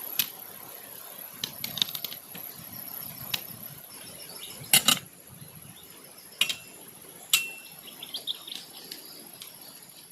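Outdoor background with a steady high-pitched insect-like whine, broken by scattered sharp clicks and knocks, the loudest a little before halfway, and a couple of short high chirps after it.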